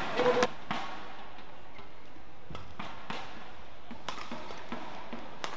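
Indoor badminton match: a brief loud voice burst, a shout or cheer, just after the start, then scattered sharp taps of shuttlecock hits and feet on the court over a steady arena background noise.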